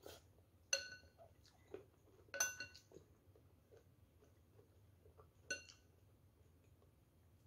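A metal spoon clinks against a bowl three times, about a second in, near the middle and near the end; each strike rings briefly. Fainter ticks and scrapes of utensils in the bowl come between.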